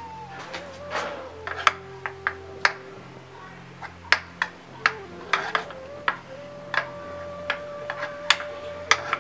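Metal spoon clinking against the sides of a ceramic dish while stirring batter: irregular sharp taps, about one or two a second.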